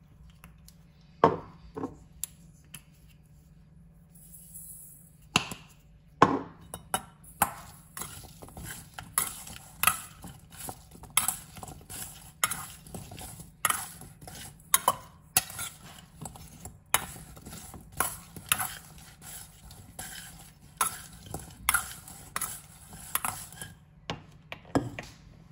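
A metal spoon knocks and scrapes against a stainless steel mixing bowl as oiled vegetable wedges are tossed in it. There are a couple of knocks about a second in, then a steady run of clinks at about one to two a second from about five seconds in until just before the end.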